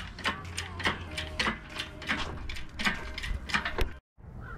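Ratcheting metal clicks in quick, uneven strokes as a K24 engine's mount bolts are tightened on an engine hoist, cutting off suddenly about four seconds in.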